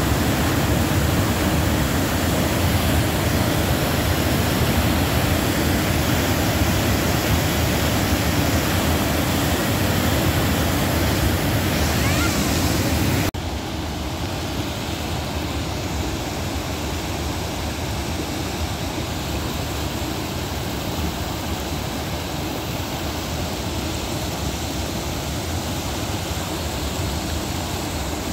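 Fast whitewater river rushing over rapids, a steady dense noise. About halfway through it cuts abruptly to a quieter, thinner rush of a shallow creek spilling over rocks and small cascades.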